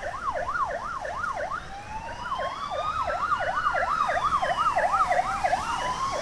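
Fire engine siren sounding a fast yelp, about three sweeps a second, with a second siren's slow wail coming in about a second and a half in, rising and then falling.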